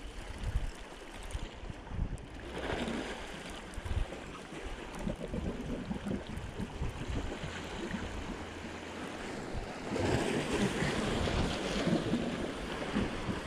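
Sea waves washing against shoreline rocks, swelling about two and a half seconds in and again from about ten seconds in, with wind rumbling on the microphone.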